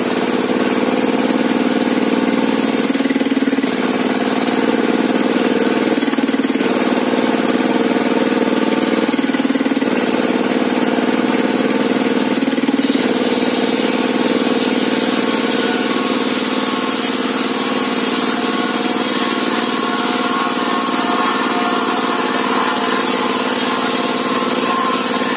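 An engine runs steadily, most likely the one driving the sawmill's table saw. Its note dips briefly about every three seconds in the first half, then holds even.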